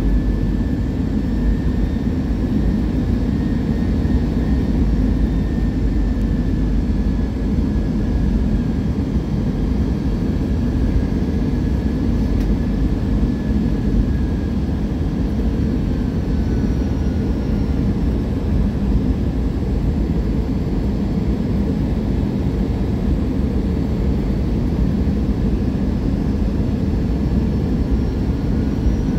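Airbus A320 cabin noise on approach: the steady rumble of the engines and rushing air over the wing, with a faint engine whine that drifts slowly in pitch.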